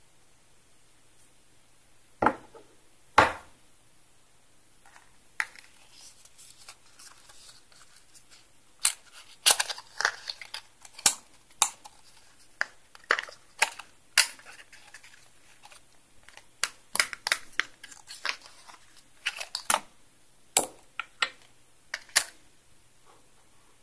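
Small metal and glass parts of a vape mod and tank being handled: two loud knocks a couple of seconds in, then irregular clusters of sharp clicks and taps as the parts knock against each other and the tabletop.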